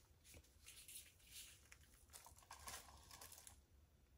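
Faint, short puffs of breath blown across wet acrylic paint to push out the petal lines, several in quick succession, stopping about three and a half seconds in.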